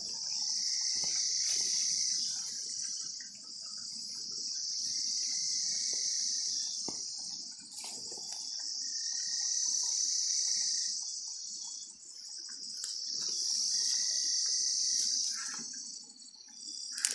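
A high insect chorus at night, swelling and fading in long waves every three to four seconds. Soft rustling and footsteps through grass sound underneath.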